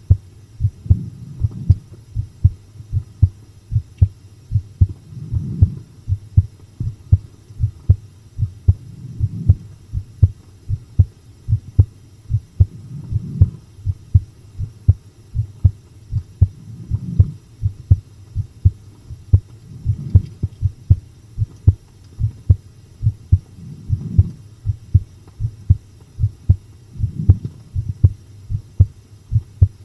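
A human heartbeat recorded close up, steady paired lub-dub thumps at a little over one beat a second, muffled and deep. A soft low swell rises under the beats about every four seconds.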